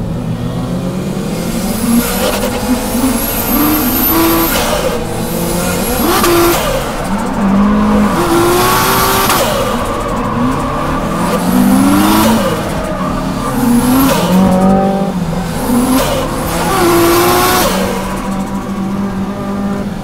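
Toyota JZX straight-six engine heard from inside the cabin while drifting, its revs climbing and dropping again every couple of seconds under throttle and clutch work, with tyre squeal.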